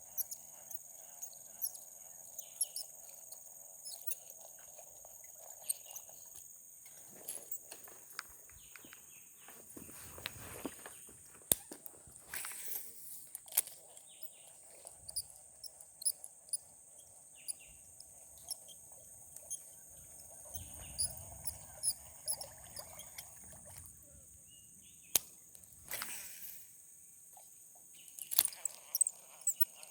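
Steady high-pitched insect drone, with a lower chorus of calls that fades in and out, and scattered sharp clicks and knocks.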